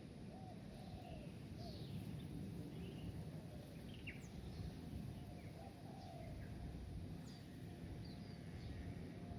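Scattered bird chirps and short calls over a steady low background rumble.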